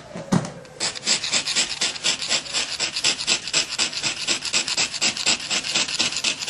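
Rapid, even scraping strokes, about five a second, against a rough, grainy surface, like something being scratched or rubbed back and forth. It starts about a second in.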